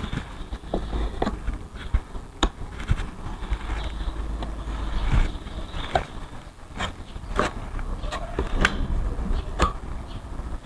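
Polyester body filler being spread onto a fiberglass panel with an improvised applicator: irregular scrapes and sharp clicks as the tool drags and taps on the surface, over a low rumble.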